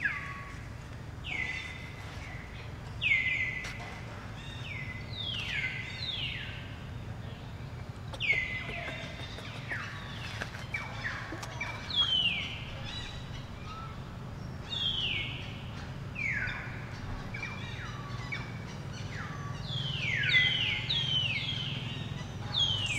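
Many high chirping animal calls, each a short downward-sliding note, coming one after another and often overlapping, over a steady low rumble.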